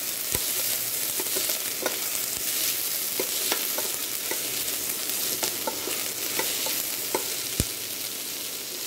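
Chopped onions and green chillies sizzling in hot oil in a stainless steel pot while a metal spoon stirs them, with scattered clicks and scrapes of the spoon against the pot. The onions are being sautéed until they brown.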